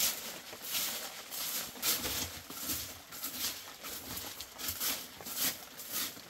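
Short straw hand broom sweeping dry dirt and small stones across an earthen floor, in quick repeated swishing strokes, about three every two seconds.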